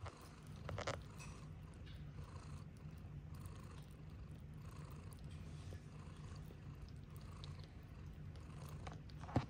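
A cat purring steadily, with a brief rustle about a second in and a sharp click near the end.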